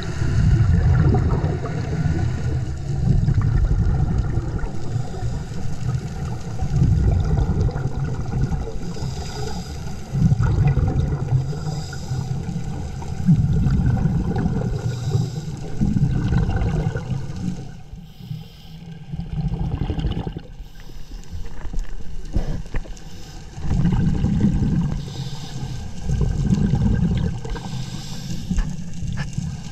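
Scuba diver breathing through a regulator underwater: low, muffled rumbling surges of exhaled bubbles every few seconds, with a fainter hiss between them.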